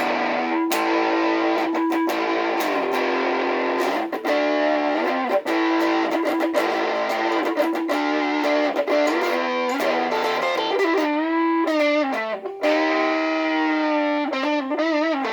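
Electric guitar played through a Strum Buddy, a small battery-powered amp that suctions onto the guitar, on its crunch setting: distorted, sustained lead notes with string bends and vibrato.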